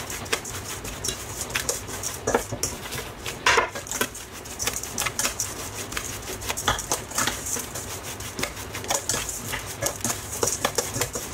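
A metal spoon scraping and clinking against a stainless steel bowl as a dry, gritty mix of sugar, chili flakes, salt and shrimp paste is stirred together. Quick, irregular clicks and scrapes, with one stronger scrape about three and a half seconds in.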